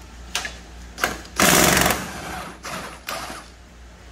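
A Snap-on cordless impact wrench hammers for about half a second, about a second and a half in, to break loose a 14 mm engine mount bolt. Two shorter bursts from the tool follow.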